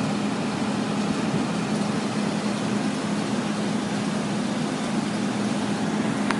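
HVAC package unit running with its belt-driven blower, freshly fitted with a new belt at good tension: a steady rush of air over a constant low hum.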